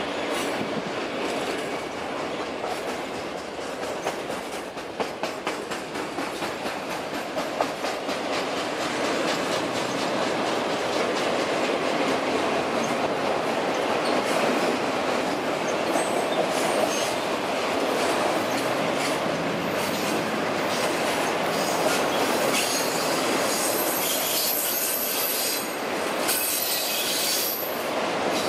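Freight train of autorack cars rolling past, the wheels clicking steadily. About halfway through, high thin wheel squeal sets in, from wheels flanging on the curve, and comes again near the end.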